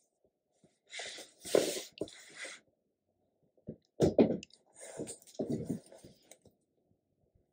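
Handling noise from a cotton crochet towel being turned and laid flat on a wooden tabletop: rustling and brushing in two bursts, about a second in and about four seconds in. The second burst opens with a sharp knock.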